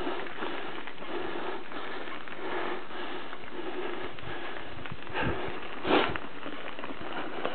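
A person breathing hard in a steady rhythm while walking on a dirt trail, with footsteps on the ground; one sharper, louder breath about six seconds in.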